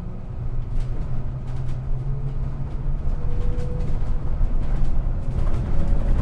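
City bus interior while driving: a steady low engine and road rumble that slowly grows louder, with scattered rattles and clicks from the cabin.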